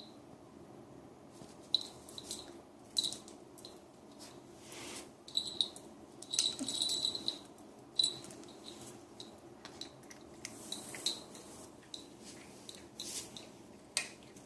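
A puppy eating and playing: a scatter of small sharp clicks and brief high squeaks, irregular and busiest in the middle.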